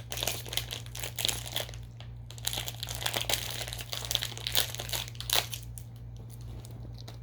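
Plastic candy wrapper crinkling and rustling as it is handled, in dense irregular crackles that thin out over the last couple of seconds.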